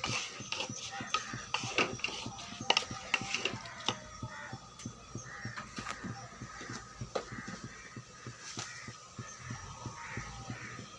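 Background music with frequent irregular clicks and knocks, loudest in the first four seconds.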